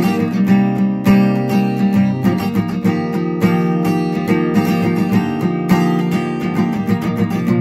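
Steel-string acoustic guitar with a capo, strummed in a steady rhythm of chords, changing chord about two seconds in.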